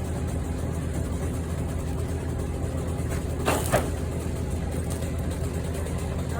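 Heavy equipment's engine running steadily at low speed, with two short sharp knocks about three and a half seconds in.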